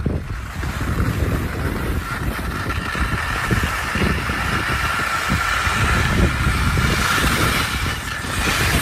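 Wind buffeting the microphone in uneven gusts, over a steady machine hum in the background.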